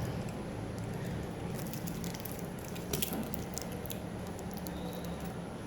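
Small scattered clicks and taps from a wristwatch being handled, the sharpest about three seconds in, over a steady low hum.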